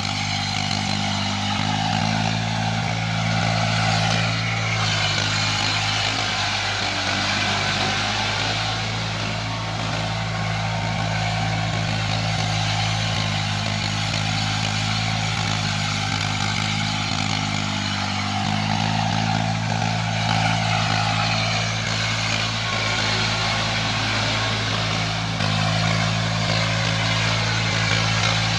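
Eicher 480 tractor's three-cylinder diesel engine running steadily under load as it drives a rotavator through wet mud. The engine note steps slightly up and down in pitch a few times.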